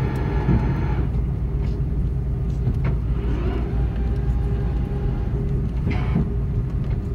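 Airbus A330-300 cabin noise just after landing: a steady low rumble as the airliner rolls off the runway onto the taxiway. A faint higher hum stops about a second in.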